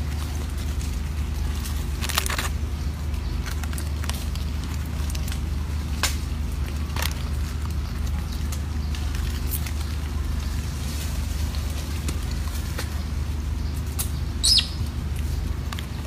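Outdoor ambience: a steady low rumble with scattered faint clicks, and one short high-pitched chirp about a second and a half before the end.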